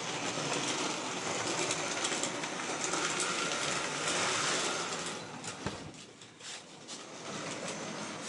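Hornby model train running on the layout's track: a steady whirr from the locomotive's small electric motor with fine clicking of wheels on rail, growing fainter a little over five seconds in.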